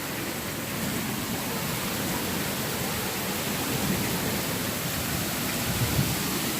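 Heavy rain in a tornado storm, a steady even hiss with no letup.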